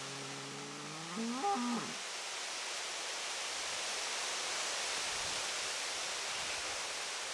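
A single drawn-out low call that rises slowly, breaks upward to a higher pitch a little over a second in, then stops, over a steady hiss.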